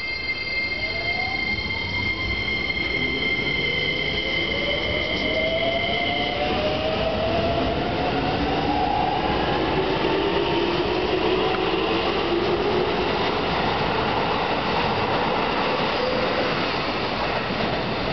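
Keikyu 2100-series electric train accelerating away: its motors whine in rising tones over the rumble of the wheels on the rails. A high steady squeal runs alongside and stops suddenly about six seconds in.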